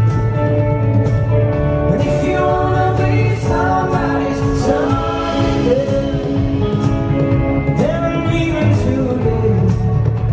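Live acoustic band playing through a PA: strummed acoustic guitars under male vocals singing.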